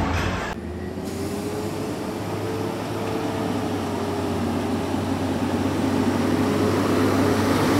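Garbage truck's engine running as it comes up the street, with a steady low hum and a faint whine that grow louder as it nears.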